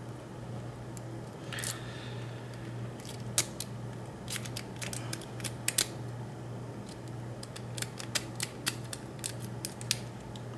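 A rake pick scraping in and out of a Master Lock V Line padlock's pin-tumbler keyway under tension, giving an irregular run of small sharp metallic clicks and brief scrapes as the pins are bounced toward the shear line.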